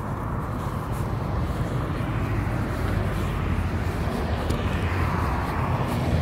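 A motor vehicle's low engine hum and road noise growing gradually louder, as if drawing closer.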